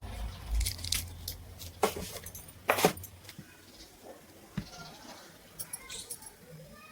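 Metal parts and tools clinking and knocking against each other, with a couple of sharp metallic clinks about two to three seconds in and lighter taps later.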